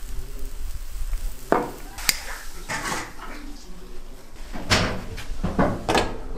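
Half a dozen sharp clinks and knocks of metal cookware being handled: solid-fuel cubes put into a metal burner stand and a stainless-steel dry pot set down on top of it.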